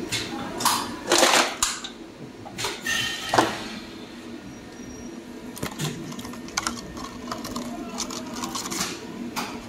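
Rigid clear plastic blister packs being lifted from a welding mould and handled, crackling and clicking irregularly, loudest in the first few seconds, over a steady low machine hum.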